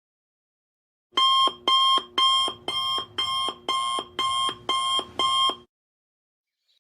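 Electronic alarm beeping nine times in a steady rhythm, about two high beeps a second, then stopping.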